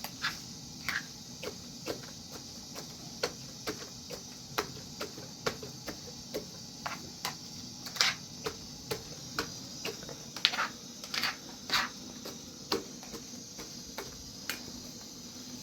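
A run of short, irregular clicks and light taps, about one or two a second, over a steady low hiss.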